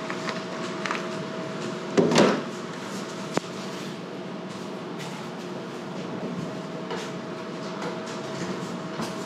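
A knock about two seconds in as a plastic gallon milk jug is set down on the counter, then a single sharp click about a second later, over a steady electrical hum.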